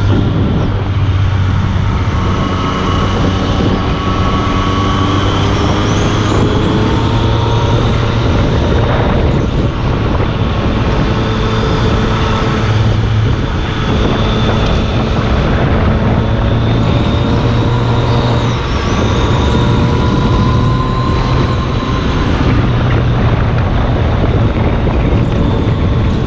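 Yamaha FZ-09 inline three-cylinder engine running through an Akrapovic carbon-fibre exhaust while ridden at moderate revs. The engine note rises and falls gently with the throttle.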